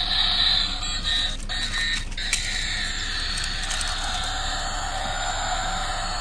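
A crushed toy car's electronic sound module playing an alarm-like tone through its small speaker, several pitches at once, a lower one slowly rising in the second half.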